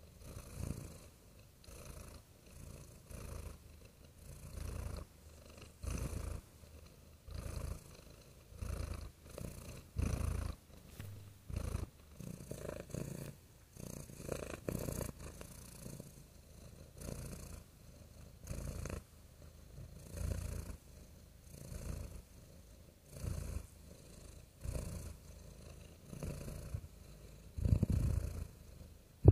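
Domestic cat purring steadily, the low rumble swelling and fading with each breath roughly every second and a half.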